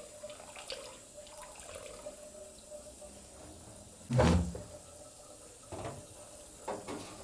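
Quiet room ambience with a faint steady hiss and hum, a few light knocks, and one heavy dull thump about four seconds in.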